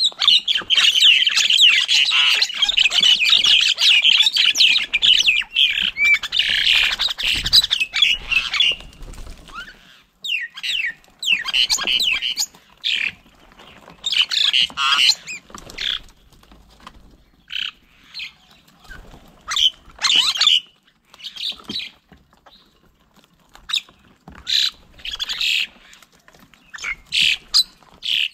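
Birds calling and squawking: a dense, overlapping chatter for the first eight or nine seconds, then scattered short calls.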